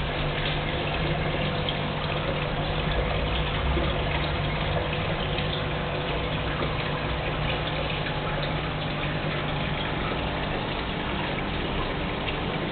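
Aquarium water and aeration running: a steady rush of bubbling water from the tank's air stone and filter, with a low steady hum from the pump.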